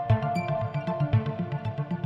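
Electronic background music with a steady beat and held synthesizer notes.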